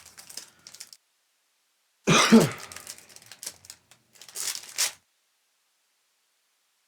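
A person coughing, a loud cough about two seconds in and a shorter one or a throat-clear near the five-second mark, after which the sound cuts off to silence.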